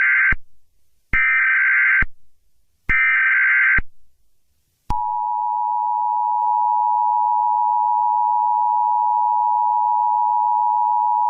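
Emergency Alert System tones. First come short bursts of the SAME header's digital data screech: the tail of one, then two more, each under a second long with about a second between. About five seconds in, the steady two-tone EAS attention signal starts and holds.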